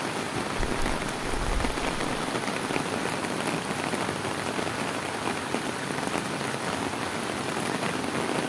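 Heavy rain falling steadily onto a flooded street, the drops pattering on the standing floodwater.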